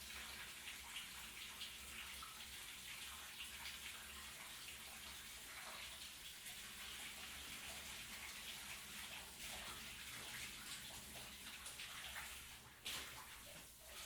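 Shower water spraying steadily, with small irregular splashes. It briefly drops out about twelve and a half seconds in, then comes back with a sudden louder splash.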